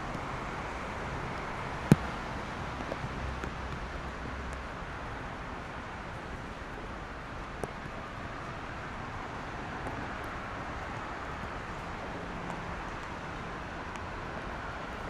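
Steady city traffic noise from cars on a wet road, an even wash of tyres and engines, with a few scattered ticks and one sharp loud click about two seconds in.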